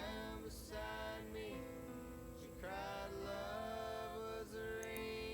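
Background music: a song with a sung vocal over instrumental accompaniment, with long held notes.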